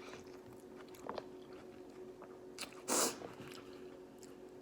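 Close-miked chewing and biting of seafood boil food, with soft wet clicks and one short, loud rush of noise about three seconds in.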